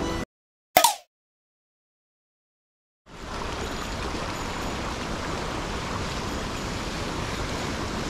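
Water of a snow-fed mountain stream and a small weir waterfall, a steady rush that starts about three seconds in after a dead-silent gap. Just under a second in, the silence is broken by one brief, loud edited sound effect, the loudest thing here.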